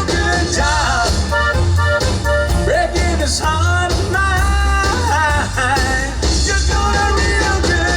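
A live band playing an instrumental break in an up-tempo country song: a steady bass and beat under a bending, wavering lead melody.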